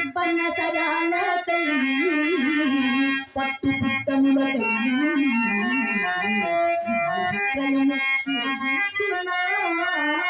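Music with a melody played on a harmonium-like reed instrument, the lines wavering and moving in pitch, with a few brief breaks about three and a half seconds in.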